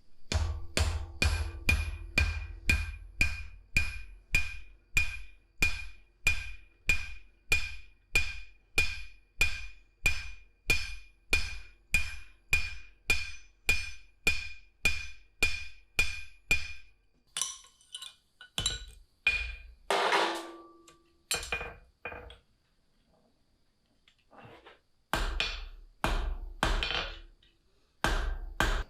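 A blacksmith's hammer striking steel on an anvil, steady at about two blows a second with a clear ring after each blow. About 17 seconds in the rhythm breaks into a few scattered strikes, there is a short pause, and the hammering resumes near the end.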